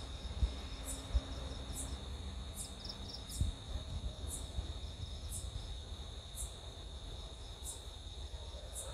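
Crickets calling at night: a steady high trill with a higher chirp repeating roughly once a second. A low rumble sits underneath, with a few soft low bumps in the first second and around three and a half seconds in.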